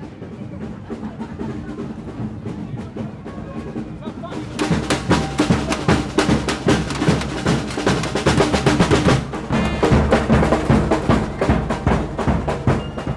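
A parade drum band playing a fast, busy rhythm on marching drums. The drumming comes in loud about four and a half seconds in, over quieter crowd noise.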